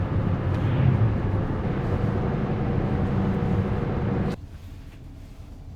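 A van driving, with steady engine and road noise that cuts off suddenly about four seconds in, leaving a much quieter background.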